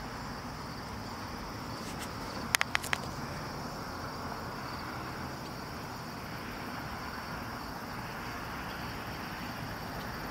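Steady, high-pitched outdoor insect chorus over a soft even background hiss, with three sharp clicks in quick succession about two and a half seconds in.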